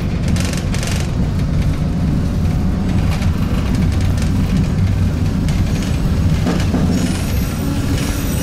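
Inside a moving tram: a steady low rumble of the running gear with rattling from the car body. A high wheel squeal sets in near the end.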